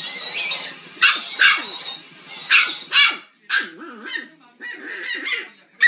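A run of short, high-pitched yapping barks, roughly two a second, as from a small dog.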